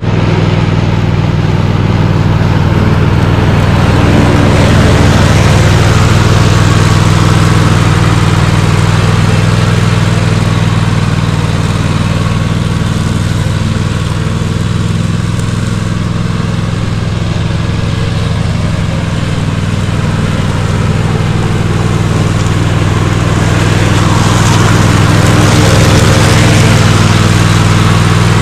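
Toro TimeCutter MR 4275 MyRIDE zero-turn mower running steadily while mowing tall grass, its engine drone unbroken. It fades somewhat in the middle as the mower moves away, then grows louder again near the end.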